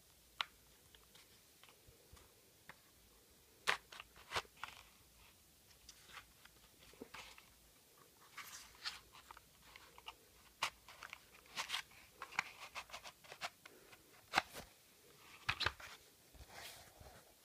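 Homemade paper handgun being handled and loaded: irregular crinkles of paper and light clicks and taps, coming thicker in the second half.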